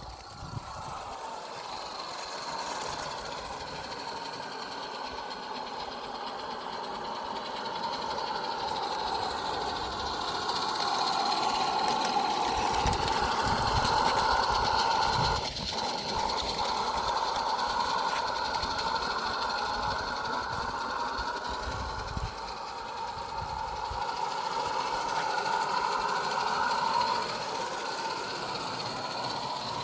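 Accucraft Ruby live-steam garden-scale locomotive running with a train of wagons: the hiss of its steam engine mixed with the rattle of wheels on the track, steady and rising and falling a little in loudness.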